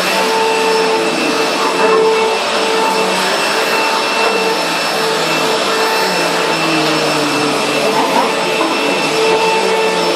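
Vacuum cleaner running steadily: a constant motor whine over loud rushing air.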